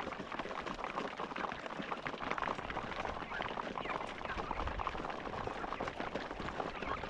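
A flock of young chickens eating from feeders: a dense, steady patter of beaks pecking at feed, with a few faint peeps.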